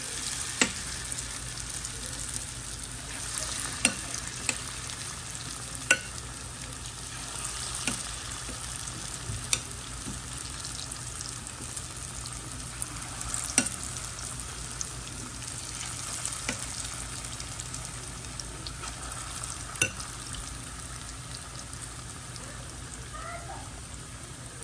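Hot oil deep-frying a batch of bajiyo fritters in a stainless steel pot: a steady bubbling sizzle, with a sharp tick every few seconds.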